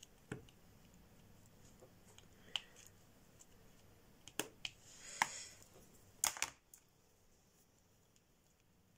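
Scattered light clicks and taps of diamond-painting tools: a multi-placer drill pen and a small plastic drill tray knocking as resin drills are picked up and pressed onto the canvas. There is a short rattle about five seconds in and two sharper knocks a little after six seconds, when the pen is set down and tweezers are picked up.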